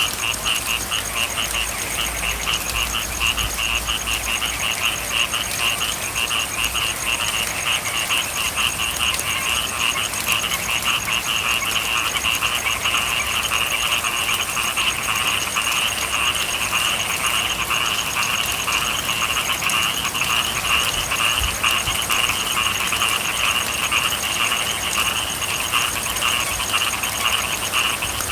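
A dense chorus of frogs calling without pause in rapid, pulsing trills, over the steady patter of rain.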